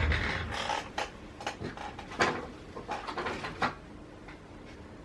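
Rummaging through small hard objects: a string of irregular clicks and light knocks, thinning out after about four seconds, as things are moved about in a search for a tool to eject the SIM tray.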